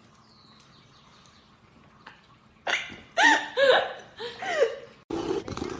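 A pet animal making a run of four or five short calls that bend up and down in pitch, starting nearly three seconds in, followed near the end by a sudden burst of noisier sound.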